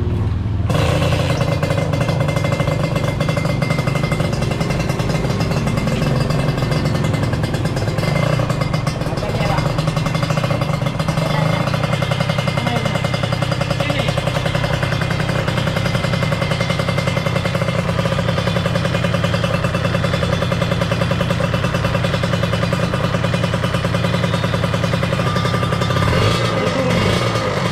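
Kawasaki Ninja R's 150 cc single-cylinder two-stroke engine starting about a second in, then running steadily on test after a major service; the piston is worn and carboned and the cylinder scored, the cause of its rough-sounding engine.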